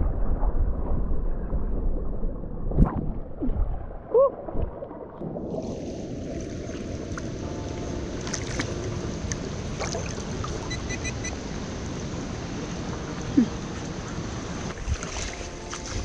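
Creek water heard through a GoPro held under the surface: a muffled, dull underwater rumble with a few knocks and a short bubbly gurgle. About five and a half seconds in, the camera comes out of the water and the sound opens up into the hiss of the shallow creek running over rocks.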